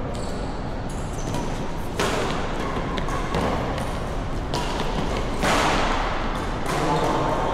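Badminton rackets striking a shuttlecock in a rally: sharp hits roughly every second, each echoing in the hall, over a steady background hubbub.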